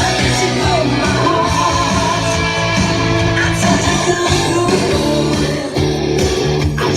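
Rock song with guitar and singing playing loud through a motorcycle's stereo system, with waterproof 8-inch speakers in the saddlebag lids and front speakers.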